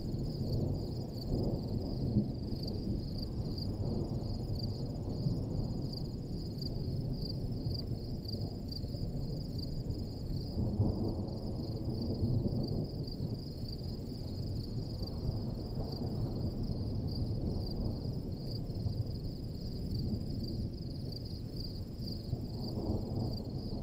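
Wind gusting on the microphone, a low rushing noise that swells several times, over a steady high trill of insects such as crickets.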